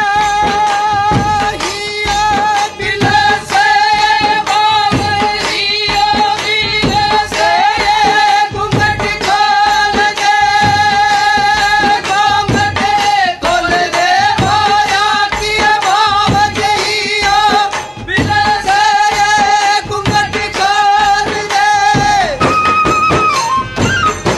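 Rajasthani folk music: chang frame drums struck in a steady rhythm under a high, long-held melody line. The melody breaks off near the end while the drumming carries on.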